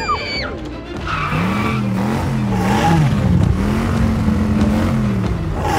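A car engine revving, its pitch rising and falling again and again, with tyres skidding.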